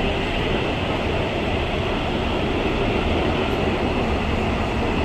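Gwangju Metro Line 1 subway train running between stations, heard from inside the car as a steady, even rumble of wheels and running gear.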